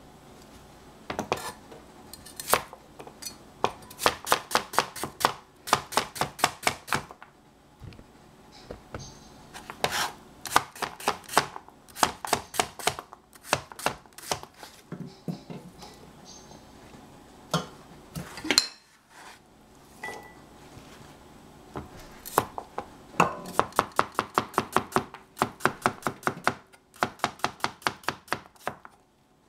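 Cleaver slicing cucumber on a plastic cutting board: quick runs of knife strokes knocking on the board, several a second, in bursts of a few seconds with short pauses between.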